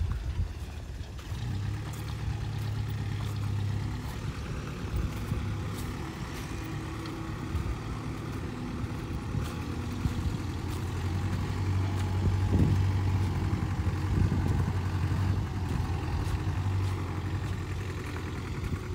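Heavy diesel engine of the earthmoving machinery, a dump truck or excavator, running steadily with a low hum, alongside footsteps crunching on a dry dirt track.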